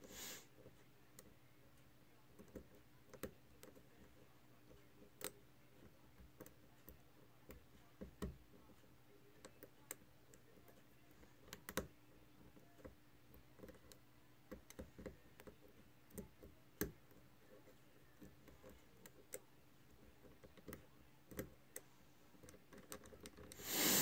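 Faint, irregular small metallic clicks and ticks from a hook pick and tension wrench working the pin stack of an American Lock 1100 padlock during single-pin picking, as pins bind and click. A brief louder rustle comes near the end.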